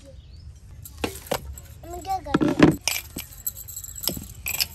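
A series of sharp metallic clinks and jingles, irregularly spaced, with a brief voice about two seconds in.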